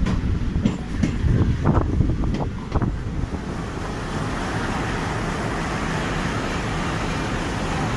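Train running on the rails: its wheels knock over rail joints for about the first three seconds, then give way to a steady rumble and hiss.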